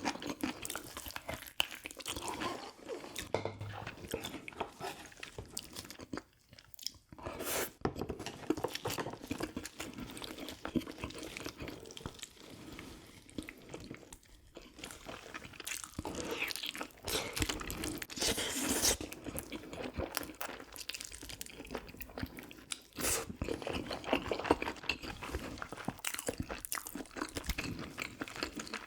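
Close-up chewing and biting: wet, crunchy mouth sounds of someone eating soy-braised pigs' feet and kimchi, with many small irregular crunches and smacks.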